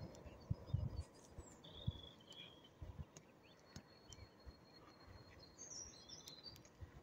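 Faint birds chirping in short scattered calls, with a few soft low thumps.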